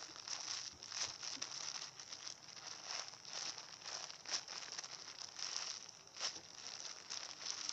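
Corn-shaped foam squishy being handled and squeezed, giving irregular soft crinkling and crackling.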